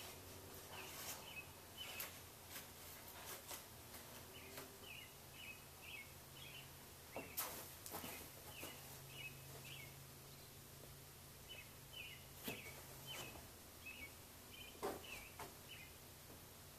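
Faint bird chirping in short repeated runs of quick high chirps, with scattered sharp clicks and a low steady hum underneath.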